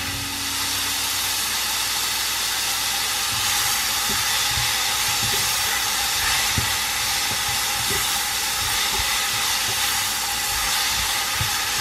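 Sliced button mushrooms, onion and garlic sizzling in butter in a nonstick frying pan, a steady hiss, with occasional soft knocks of a spatula stirring them.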